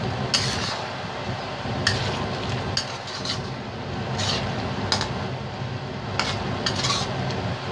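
A utensil stirring chicken curry in a stainless steel wok, scraping and clinking against the metal at irregular moments, about nine times, over a steady low hum.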